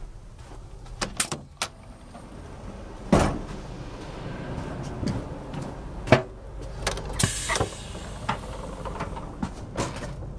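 Interior sliding doors between the cars of a TGV Duplex opening and closing as someone passes through, with clicks, two loud thumps and a brief hiss about 7 seconds in, over footsteps and a low steady rumble.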